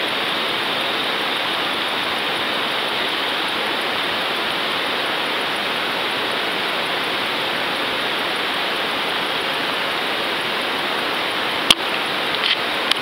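Steady rushing hiss of water picked up through an underwater fishing camera's housing, with one sharp click near the end.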